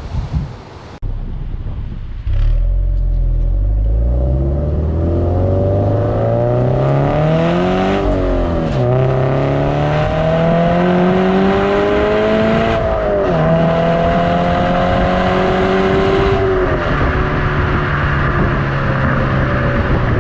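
Subaru BRZ's flat-four engine through an HKS Legamax Premier exhaust, accelerating hard through the gears. The pitch climbs steadily, falls at an upshift about 9 s in and again about 13 s in, then settles into a steadier drone with one more small drop near the end.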